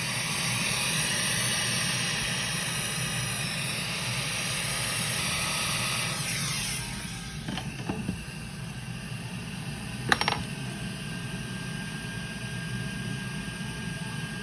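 Hot-air rework blower hissing steadily for about seven seconds while desoldering a BGA SSD chip off a laptop motherboard, then switched off, its fan winding down with a falling pitch. A few light clicks follow, the sharpest about ten seconds in, over a low steady hum.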